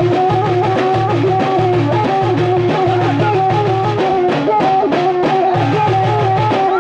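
Alaoui folk music played live: bendir frame drums and a hand drum beat a steady, driving rhythm under a repeating, piping melody line.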